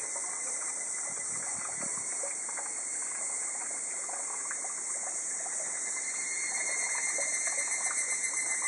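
Higurashi, the evening cicada (Tanna japonensis), shrilling: a steady high-pitched drone that grows louder and takes on a pulsing beat, several pulses a second, about two-thirds of the way in.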